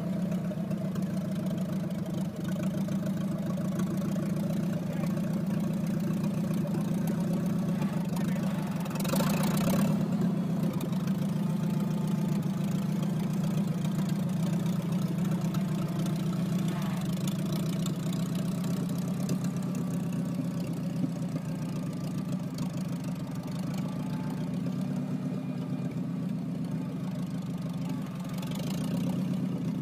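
Machine's engine idling steadily, with a brief hiss about nine seconds in and a fainter one near the end.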